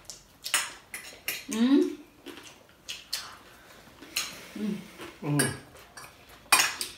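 People eating at a table: dishes and cutlery clink, with chewing and lip sounds. A few short murmured vocal sounds come between them.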